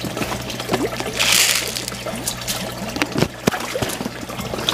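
Water pouring from a PVC pipe outlet into a fish tank, a steady splashing trickle over a low hum, with a brief hiss about a second in and a few sharp clicks later on.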